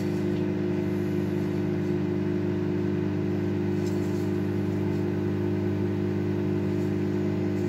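A kitchen appliance's motor humming steadily with a low buzz, unchanging throughout.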